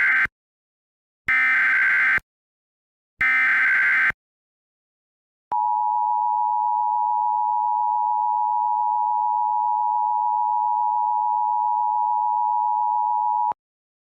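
Emergency Alert System SAME header: three buzzy data bursts about two seconds apart, the first already underway, opening a Civil Danger Warning. After a second's pause comes the steady two-tone EAS attention signal, held about eight seconds and cut off abruptly.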